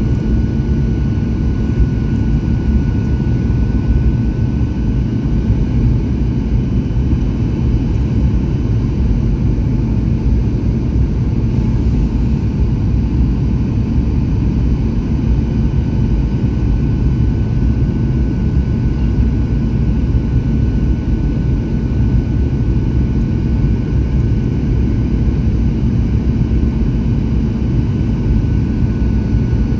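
Aircraft cabin noise on approach: the engines and airflow make a steady low rumble, with a faint steady whine above it.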